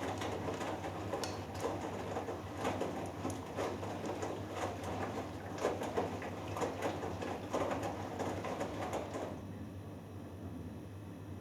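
Hoover Dynamic Next washing machine's drum turning the wet 3 kg cotton load in the wash, with water sloshing and clothes patting against the drum over a steady low motor hum. The tumbling stops about nine seconds in as the drum pauses, leaving only the hum.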